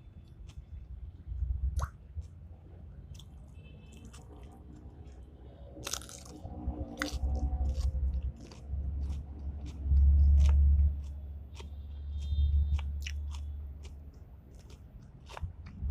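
Irregular crunching and sharp clicks over dull low thumps, loudest about ten seconds in.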